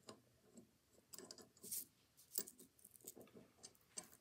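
Faint, scattered light clicks and scrapes of a small thin washer and ratchet pawl being worked by hand onto the motor shaft of an Edison Home phonograph.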